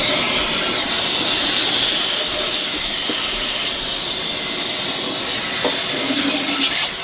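Vacuum cleaner running with a steady hiss and a high whine as its nozzle sucks dust out of the inside of a resonator guitar body.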